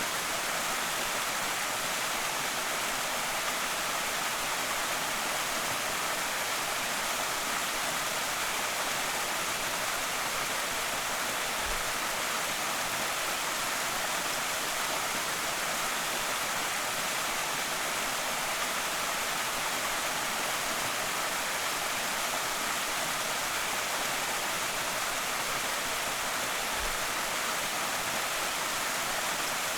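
Waterfall on a creek, rushing and splashing steadily in an even hiss that is heavy in the highs and light on low rumble.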